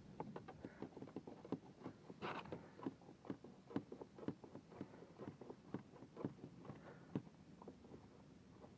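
Light, irregular clicks and knocks, several a second, of hands handling a plastic kayak hull and its fittings, with a brief rustling scrape about two seconds in.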